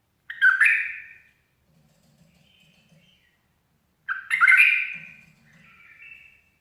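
A bulbul singing: two loud warbling phrases about four seconds apart, each trailed by a few softer notes.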